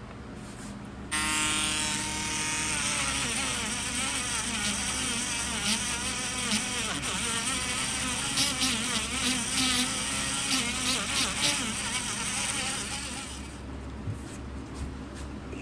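Small handheld rotary tool switched on about a second in, running at a high-pitched whine as it grinds old paint off a small metal nozzle held in a vise, with scratchy bursts where the bit bites. It shuts off near the end.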